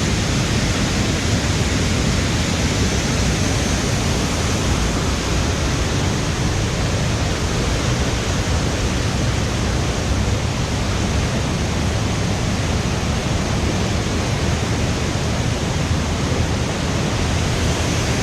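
Loud, steady rush of a river in flood pouring over a waterfall, a constant roar of water.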